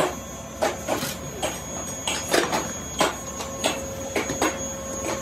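Steel shovel scraping up lumps of coal off a concrete floor and tipping them into a metal basin: irregular clattering knocks, about two to three a second, over a faint steady tone.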